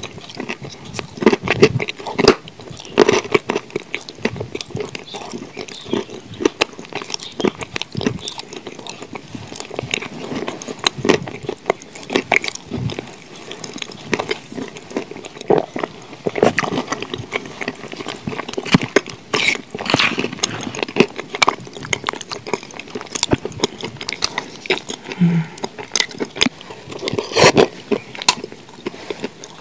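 Close-miked mouth sounds of eating thick cream by the spoonful: wet, sticky lip smacks and clicks, coming irregularly.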